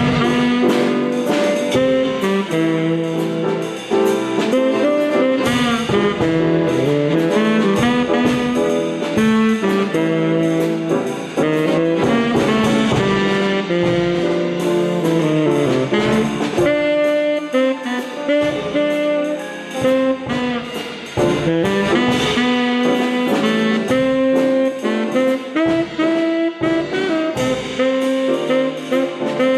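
Instrumental jazz-style music with saxophone and brass playing a moving melody over chords.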